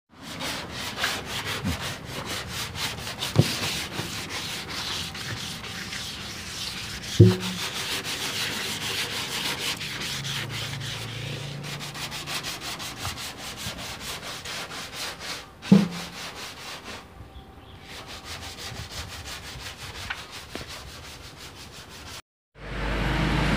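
Hand wet-sanding of the painted steel front panel of a Daihatsu Zebra Espass with sandpaper and soapy water, to prepare the old paint for repainting: quick, steady rasping strokes, with a few sharp knocks against the panel along the way.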